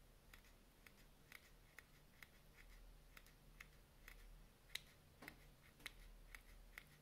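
Cuda Micro Titanium fishing-line scissors snipping thin pink fishing line into short pieces: a faint, quick snip about twice a second.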